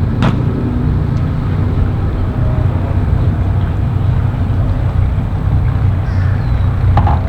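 Large motorboat's engines running at low speed, a deep steady rumble, with a sharp click about a quarter second in.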